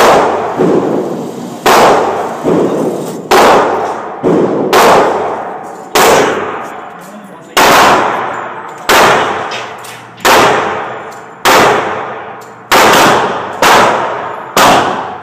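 Pistol shots fired one at a time at a steady, deliberate pace, about one every second and a half. Each shot has a ringing tail that dies away, and a few fainter shots fall in between.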